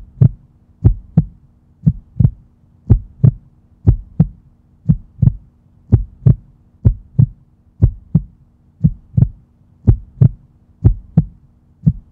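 Heartbeat sound effect: slow, steady double thumps, about one beat a second, over a faint steady hum.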